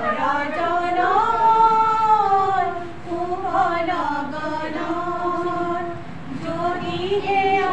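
Three women singing a song together without accompaniment, holding long notes, with short breaks between phrases.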